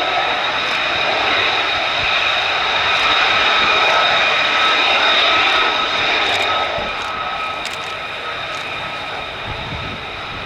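F-35A Lightning II's Pratt & Whitney F135 jet engine running with a steady high whine over a rushing noise, growing louder to a peak about halfway through, then fading with the whine dying away about seven seconds in.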